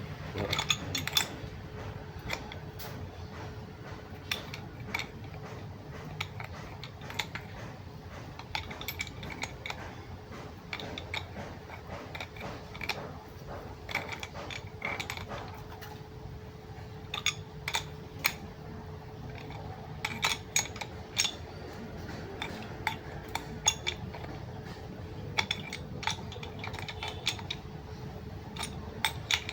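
Irregular metallic clicks and clinks of hand tools and parts being handled during work on a rack-and-pinion steering unit, coming in short clusters over a faint steady hum.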